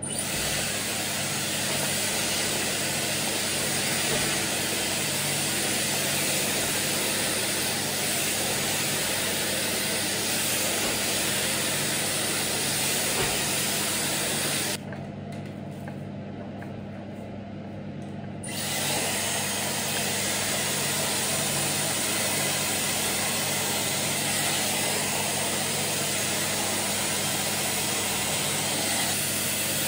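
Dyson Airwrap hair styler running, its motor blowing a steady rush of air with a low hum under it. About halfway through the airflow dips quieter for a few seconds, then comes back at full strength.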